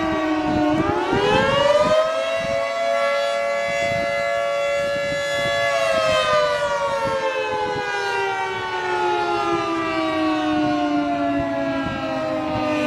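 Federal Signal 2T22 dual-tone outdoor warning siren wailing. Its pitch dips, climbs over about a second to a held tone for several seconds, then slowly falls again.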